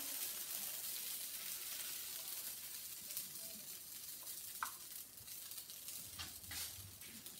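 Oat waffle batter sizzling on the hot, greased plates of an electric waffle maker as it is poured and scraped in from a jug. The hiss is strongest at first and slowly dies away, with a few light knocks near the end.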